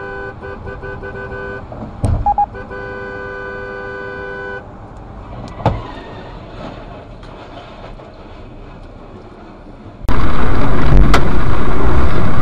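A car horn honks in about six short blasts, then is held for about two seconds. A sharp knock comes a little later. Near the end a loud, steady rush of road and wind noise takes over.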